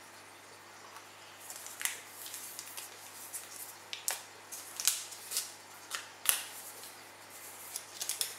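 Hands handling a smartphone and its packaging: a run of light rustles and sharp small clicks that starts about a second and a half in, the loudest clicks near the middle.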